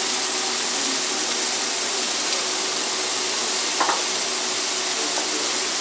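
Chopped onion and tomato sizzling steadily in a frying pan over a gas flame: a base being sautéed for seasoning beans.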